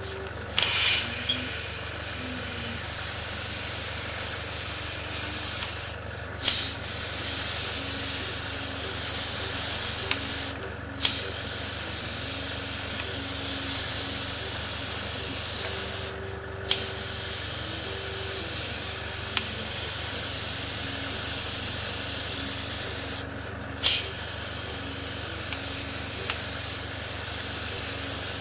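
Sparmax DH-103 airbrush hissing as it sprays thinned lacquer paint in lines at lowered air pressure; the hiss stops briefly four times between passes. A low steady hum runs underneath.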